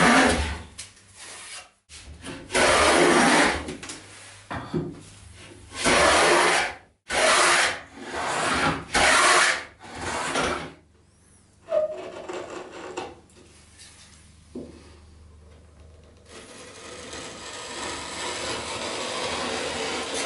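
Wooden hand plane with a fence taking shavings along a wooden board's edge: about six loud strokes, each lasting about a second, in the first ten seconds, then a few softer scrapes. A quieter, steady rasping sound rises in the last few seconds.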